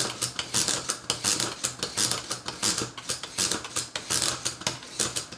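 Plastic toy gymnastics game clicking and ratcheting in a quick, even series of several clicks a second as its button is worked to swing the gymnast figure on its bar.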